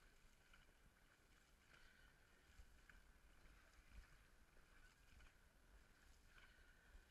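Near silence, with faint splashing of dragon boat paddles in the water.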